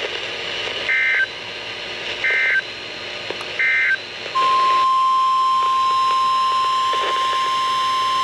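Three short bursts of EAS digital header data (SAME tones), about a second and a quarter apart, followed by NOAA Weather Radio's long, steady single-pitch warning alarm tone starting about four seconds in, over faint radio hiss. Together they signal the start of a new weather warning broadcast.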